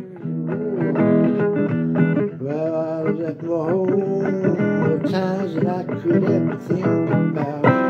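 Blues music: an instrumental break on plucked guitar between sung lines, with notes that bend and slide.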